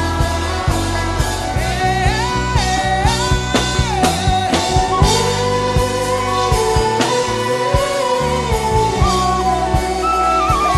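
Worship music: a man humming a wordless melody in long held notes that glide from pitch to pitch, over a band backing with steady drum hits and bass.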